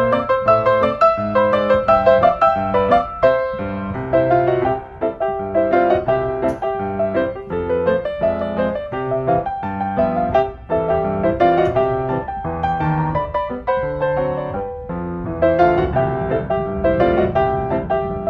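Background piano music, a continuous flow of single notes and chords.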